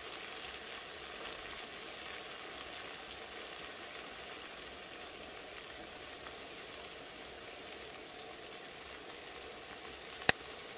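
An egg with chopped tomatoes and onions frying in oil in a nonstick pan, a steady sizzle. Near the end comes one sharp tap as an egg is cracked against the pan.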